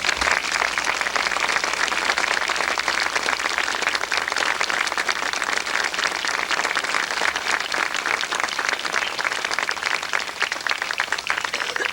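Audience applauding as a speaker is introduced, a steady round of clapping that fades out near the end.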